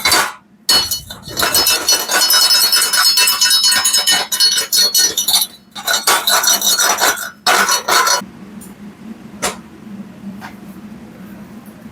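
Rapid hammer strikes on a welded round steel pipe, the pipe ringing after each blow, as slag is chipped off a stick weld; a few single knocks follow near the end.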